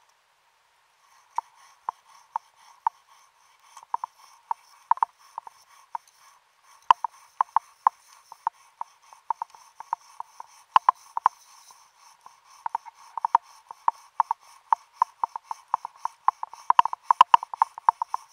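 Repeated short scraping strokes of a diver scrubbing concretion off a submarine's propeller blade to expose its stamped serial number, heard underwater. The strokes start about a second in, sparse at first, and come faster and denser toward the end.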